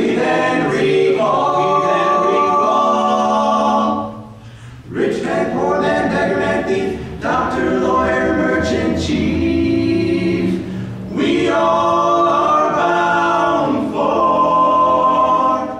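Barbershop quartet of four men singing a cappella in close four-part harmony, holding ringing chords. There is a short break in the singing about four seconds in, and the phrase ends at the very end.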